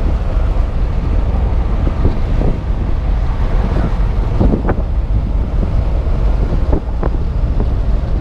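Wind buffeting the microphone in a moving 1975 Buick LeSabre convertible, a steady low rumble with road and engine noise underneath. There are a couple of brief louder spots about four and a half and seven seconds in.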